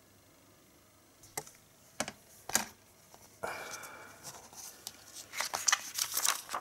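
Handling of a metal Blu-ray steelbook case and its discs: a few sharp clicks, a brief scrape lasting about a second, then a quick run of clicks and taps near the end.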